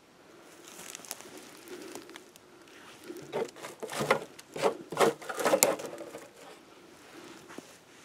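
Dry twigs and forest-floor litter crackling and rustling as they are handled and pushed aside by hand, with a run of sharp crackles loudest from about three to six seconds in.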